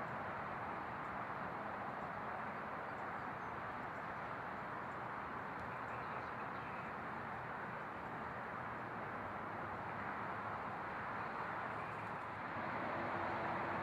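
Steady outdoor background noise, with a faint steady hum coming in near the end.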